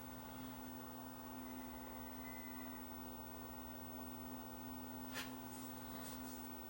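Steady hum and faint hiss from a 1946 Sparton AA5 tube table radio just switched on, its tubes still warming up before a station comes through; a few faint clicks about five seconds in.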